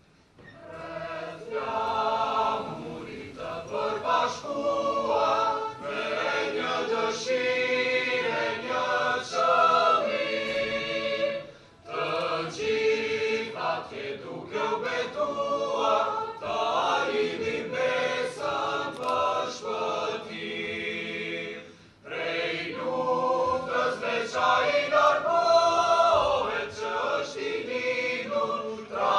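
Youth choir of boys and girls singing together, breaking off twice briefly between phrases.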